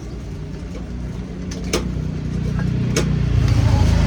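An engine running with a low hum that grows steadily louder, with a few sharp clicks, at the start, under two seconds in and about three seconds in.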